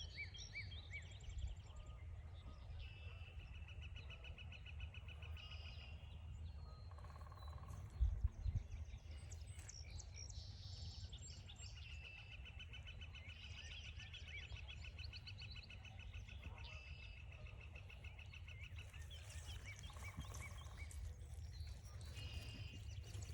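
Several wild songbirds singing, among them a long, fast trill of evenly repeated notes heard twice, once a few seconds in and again longer in the middle, over a steady low rumble. A few sharp thumps come about eight seconds in.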